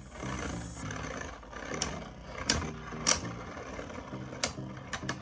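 Two Beyblade Burst tops spinning in a clear plastic stadium: a steady whirring hum, with several sharp clacks as the tops collide, the loudest about two and a half and three seconds in.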